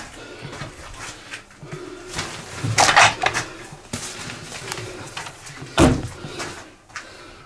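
Knocks and clatter of things being handled in a small room: a rattling clatter about three seconds in and a heavy thud near six seconds.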